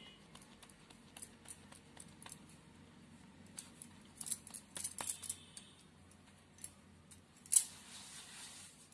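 Faint handling sounds of hands folding and pressing paratha dough on a marble rolling board: scattered light clicks and taps with small metallic clinks, like bangles on the wrist, and one louder click about three-quarters of the way through followed by a brief rustle.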